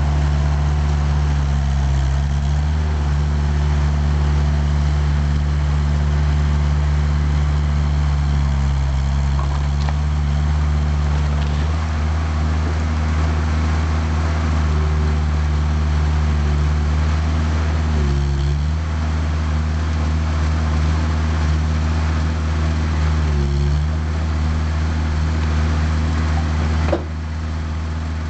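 Skid steer loader engine running steadily. Its speed dips briefly several times as the loader takes load, and it becomes a little quieter near the end.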